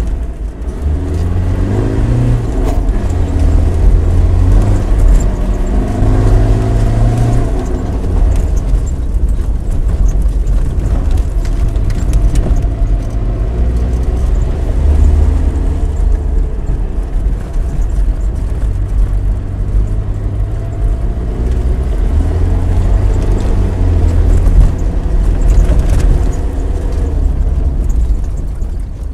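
Land Rover Discovery 200Tdi's turbodiesel engine and drivetrain heard from inside the cabin while driving off-road on a dirt track: a steady low rumble, with the engine note rising and falling as the revs change.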